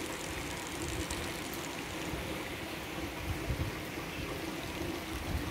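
Steady rain falling on wet pavement and parked cars, with water running and trickling. A low rumble comes and goes, most noticeably a little past halfway.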